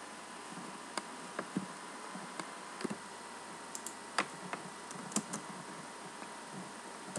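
Scattered single keystrokes on a computer keyboard, about ten in all, the loudest about four seconds in, over a steady hiss with a faint high steady tone.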